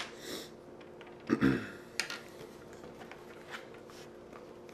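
Small clicks and taps from handling the laptop's display panel and its taped cable: a sharp click at the start with a short rustle after it, a duller knock about a second and a half in, then a few faint ticks over a steady low hum.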